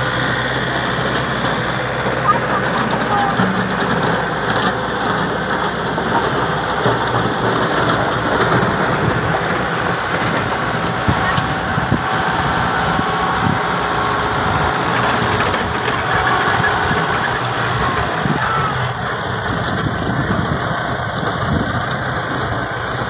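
Diesel farm tractor engine running steadily as it works a field, with voices in the background.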